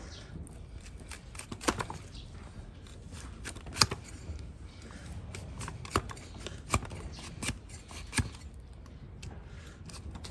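Hoof-trimming blade cutting and scraping the horn of a donkey's hoof: a run of short, sharp cuts and scrapes at an irregular pace, about half a dozen of them clearly louder than the rest.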